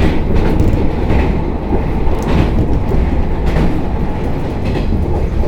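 Train running noise heard from inside a passenger car: a steady low rumble of wheels on rail, with a few scattered clacks as the wheels cross rail joints.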